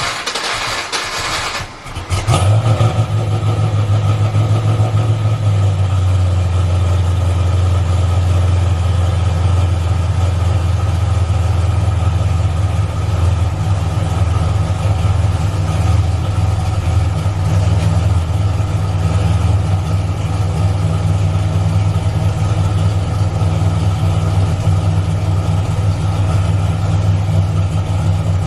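1992 Ford Mustang fox body's engine being started: the starter cranks briefly, the engine catches about two seconds in and settles into a steady idle, the idle dropping a little a few seconds after it fires.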